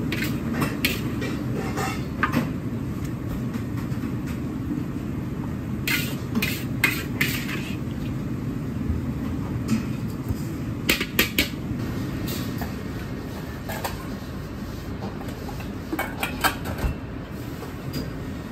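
Metal perforated ladle clinking and scraping against a wok and a ceramic platter as stir-fried chicken is heaped out, in short runs of sharp clinks over a steady low rumble of commercial kitchen equipment.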